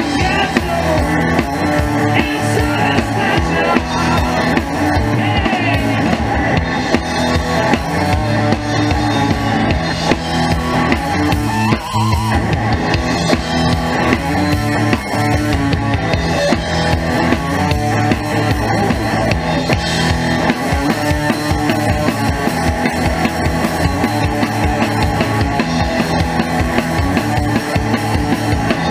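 Live rock band of drum kit, electric guitar and bass guitar playing an instrumental stretch, with the drums loud and up front. There is a brief break about twelve seconds in.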